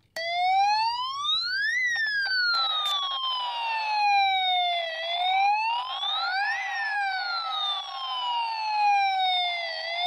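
Toy rescue fire boat's built-in electronic siren sounding, a slow wail that rises for about a second and a half and falls for about three seconds, twice over. A steady buzzy noise sounds under it from about two and a half seconds in.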